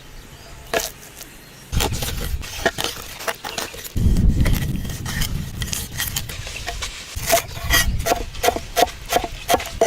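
Irregular sharp clicks and knocks, coming faster in the last few seconds, over stretches of low rumble.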